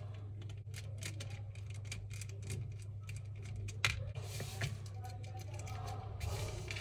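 Small screwdriver working at the screws of a toy RC car's plastic chassis, with many light clicks, ticks and scrapes of plastic being handled, and two louder knocks about four seconds in as the car is turned over and set down. A steady low hum runs underneath.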